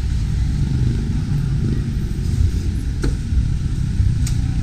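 Road traffic running on a busy street, a steady low rumble of passing vehicles, with two short sharp clicks about three and four seconds in.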